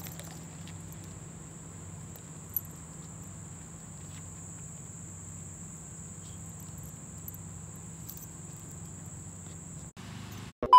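Insects droning steadily at a high pitch over a faint low hum; the drone cuts off near the end.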